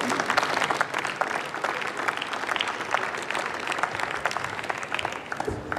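Members of parliament applauding: many hands clapping together, stopping fairly sharply just before the end.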